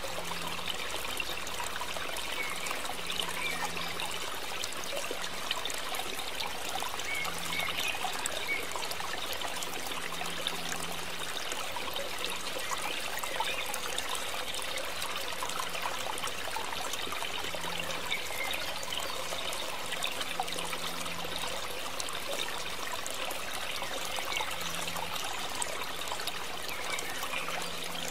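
Pot of sekanjabin syrup boiling hard under a layer of foam: a steady bubbling with many small pops.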